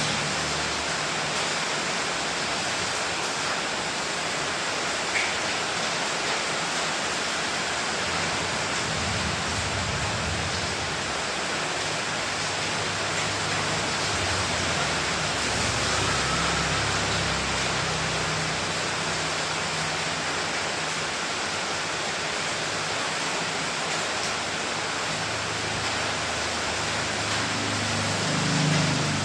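Steady rain falling, an even hiss throughout, with one sharp tick about five seconds in.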